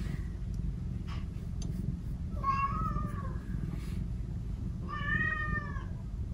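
Domestic cat meowing twice: two drawn-out calls, the first about two and a half seconds in and the second about five seconds in.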